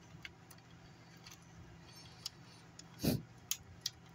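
Small metallic clicks and scrapes of a thin screwdriver working the gear of a Furby's stuck motor, over a faint steady hum, with one brief low thud about three seconds in.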